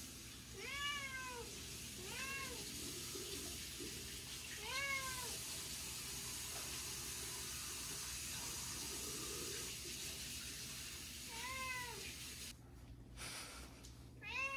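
Domestic cat meowing five times, short meows that rise and then fall in pitch, with a long gap between the third and fourth; a steady hiss runs through the middle stretch.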